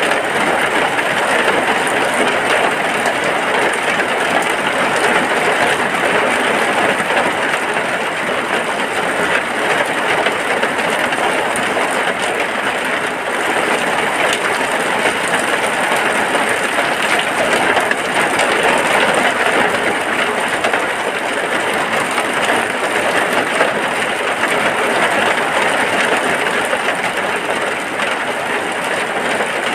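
Rain falling steadily on a hut, a dense, even hiss with no let-up.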